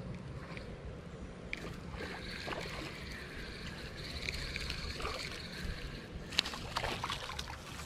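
Spinning reel being cranked as a small bluegill is reeled in, its gears giving a steady whirr. Near the end comes a short burst of sharp splashing and clicking as the fish is brought up.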